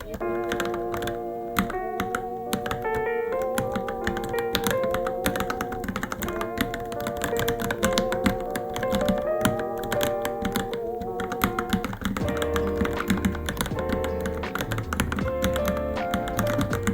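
Fast, irregular typing on a Varmilo Minilo mechanical keyboard, a steady stream of key clacks, with background music whose wavering melody plays along.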